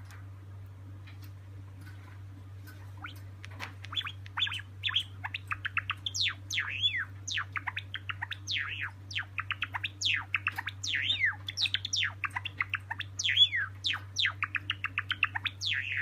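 Silver Java sparrow singing: a few soft clicks, then from about three seconds in a rapid run of high, sharply falling chirps that keeps going to the end.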